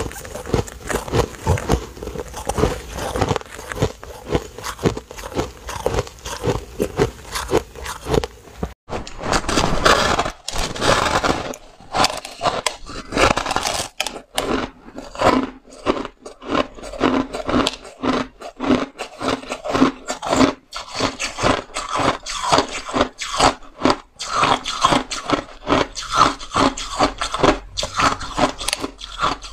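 Close-up biting and chewing of compacted shaved ice: a dense run of crisp crunches, one after another.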